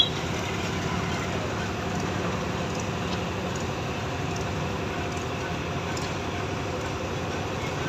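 Steady engine and road-traffic noise with a constant engine hum, and a short sharp click right at the start.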